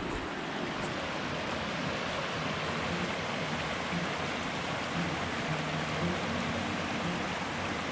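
Steady rush of flowing water from a mountain creek.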